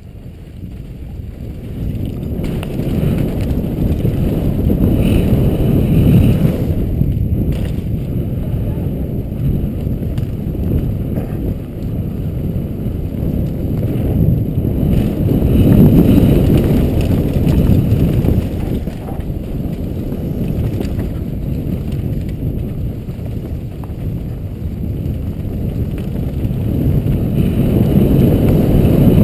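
Wind rushing over a helmet camera's microphone mixed with tyre and frame rumble from a downhill mountain bike descending a dirt trail. It builds up in the first couple of seconds, surges about 6 s and 16 s in, and grows loud again near the end as speed rises.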